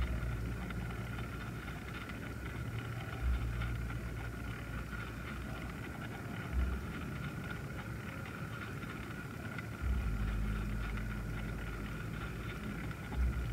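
Small electric motor of a rotating display turntable running with a steady whine over a low hum, with a short low bump about every three seconds.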